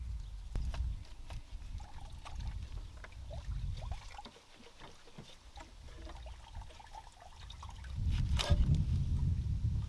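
Scattered small clicks and scrapes of tools and hands working the hose clamps and coolant hoses off a Fiat Bravo 1.6's thermostat housing, with one louder knock that rings on about eight and a half seconds in and a low rumble swelling near the end.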